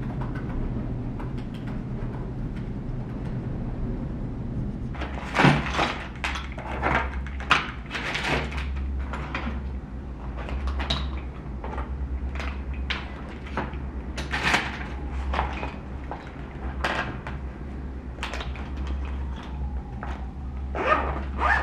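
Clatter of small objects being picked up and set down on a wooden desk: a string of sharp knocks and taps, starting about five seconds in and loudest near the start of the run and again near the end, over a steady low hum.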